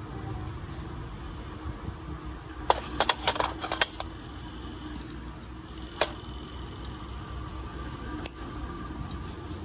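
Small steel nail tools clicking and clinking: a quick cluster of sharp metallic clicks about three seconds in, then single clicks around six and eight seconds, over a steady low hum.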